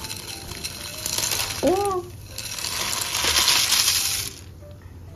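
Dry fusilli pasta poured from a glass bowl into a steel pot of boiling water, the pieces rattling and clattering as they slide out in a hissing rush. The pour stops about four seconds in.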